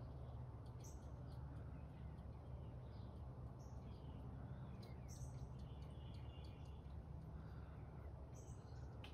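Faint outdoor ambience: birds chirping now and then, with a short trilling call about six seconds in, over a steady low hum.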